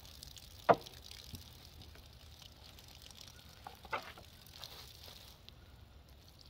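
Food frying and sizzling in a pan, with a sharp knock less than a second in and another about four seconds in, like a utensil against the pan. The sizzle dies down near the end.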